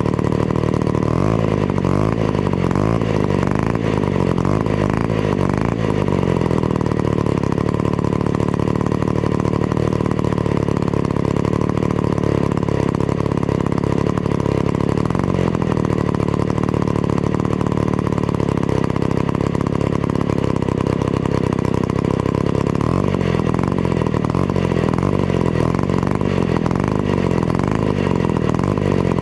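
Vintage Be-Bo 125cc two-stroke chainsaw engine running continuously. Its pitch wavers up and down about a second in and again near the end, with a steadier stretch in between.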